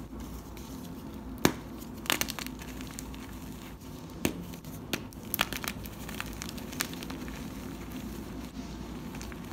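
Hands crushing and crumbling Westside Barbell gym chalk blocks topped with cornstarch paste, with scattered sharp crunches and snaps, the loudest about a second and a half in and a cluster in the middle.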